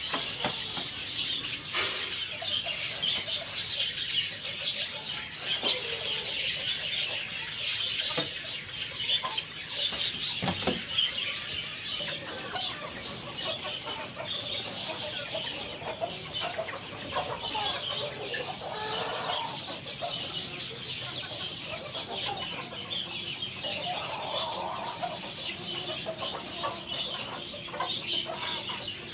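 Aseel chickens clucking and calling while being fed, with occasional knocks and clatter of feed containers being handled; the loudest knock comes about ten seconds in.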